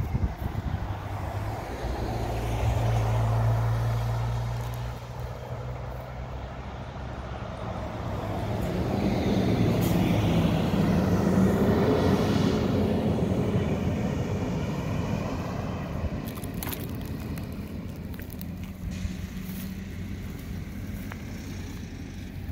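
Road vehicles driving past on a paved road. One passes about three seconds in, with a low hum. A large motorhome and a car pass louder through the middle, engine and tyre noise swelling and then fading away.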